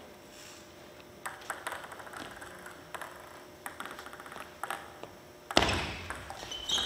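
Table tennis ball tapping lightly on the table and floor a few times as the players get ready for the next serve: soft, scattered clicks. About five and a half seconds in, a sudden louder rush of noise breaks in.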